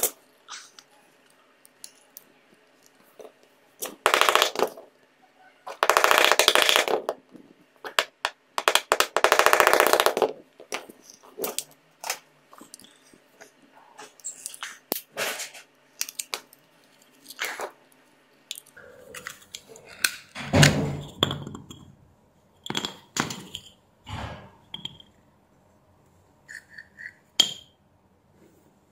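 The glued plastic case of an Apple 20 W USB-C charger being prised open with a screwdriver, giving three loud scraping, cracking bursts of about a second each in the first ten seconds. Scattered clicks and taps follow as the case comes apart and its parts are handled, with one heavier thunk about two thirds of the way through.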